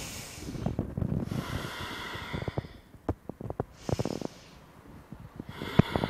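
A woman breathing deeply in and out, about four long breaths, with a few small clicks between them.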